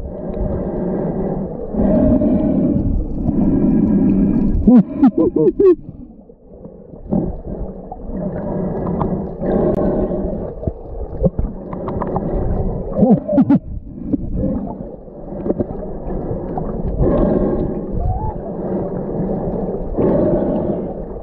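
Humpback whale song heard underwater: low moans and rising and falling whoops, one phrase every few seconds, over a steady low water rumble.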